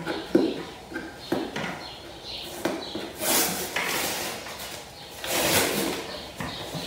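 A small cardboard shipping box being opened by hand: a few light knocks and taps on the cardboard, then packing tape ripped off the box in two longer tearing pulls about three and five seconds in.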